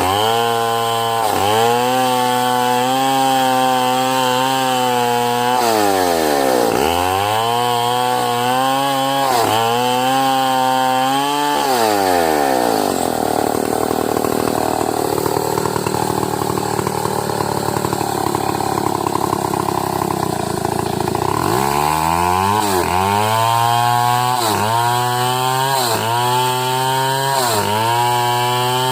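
Chainsaw ripping a medang log lengthwise: the engine runs at high revs, its pitch sagging and recovering about once a second as the chain is pushed into the wood. About twelve seconds in, the revs drop for several seconds, then it revs up and cuts again with the same rhythmic dips.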